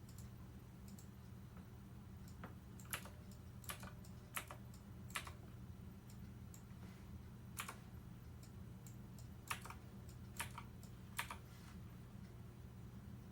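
Scattered sharp clicks, about eight of them, some in quick pairs, over a steady low hum.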